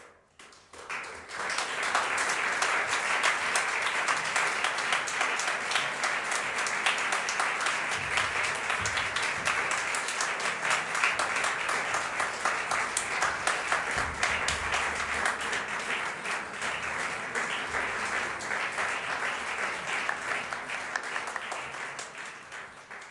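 Audience applauding: clapping breaks out suddenly from silence, builds to full within about two seconds, holds steady, then begins to die away near the end.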